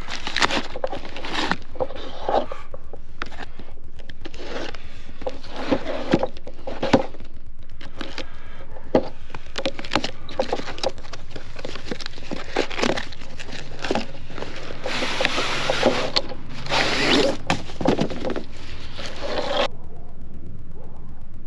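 A cardboard shipping box being cut open and unpacked by hand: irregular scraping, tearing and rustling of cardboard, with short knocks as the boxes and packed canopy are handled on a plastic folding table.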